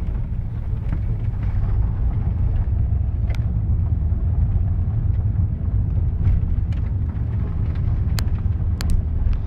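Car engine and tyre rumble heard from inside the cabin while driving: a steady low drone, with a few sharp clicks scattered through it.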